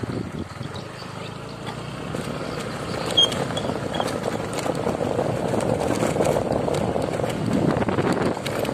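Wind buffeting the microphone over the steady rumble of a moving vehicle travelling along a gravel road, growing a little louder toward the end. A short click comes a little after three seconds in.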